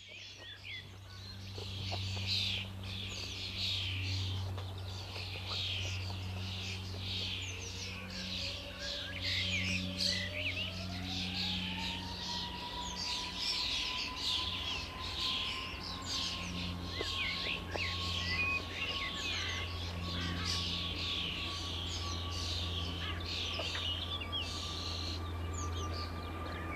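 Birds chirping steadily over the distant whine of a twin-engine Airbus A320-family airliner's jet engines, which rises in pitch about eight seconds in as they spool up for the takeoff roll and then holds steady. A low steady rumble runs underneath.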